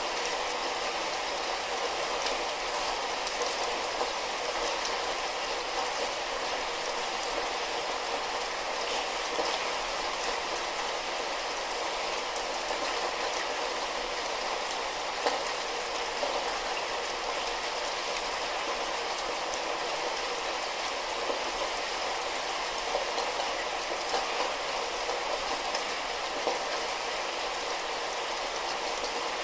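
Light rain falling steadily, an even hiss with scattered small drop ticks.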